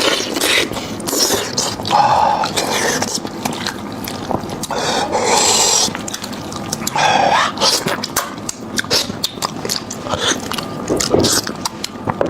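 Close-miked eating sounds of beef trotter: wet chewing and smacking, with many quick clicks and a few short voiced mouth sounds.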